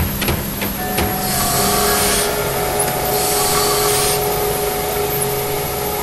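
Steady mechanical hum with two held tones, crossed by two bursts of hissing about a second long each and a few clicks in the first second.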